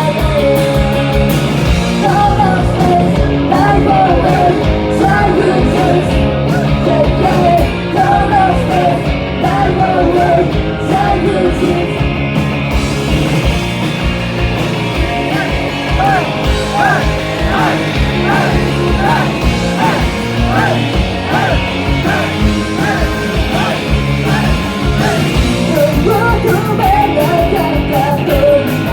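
Rock-style pop song performed live, with a lead vocal singing over a full band sound.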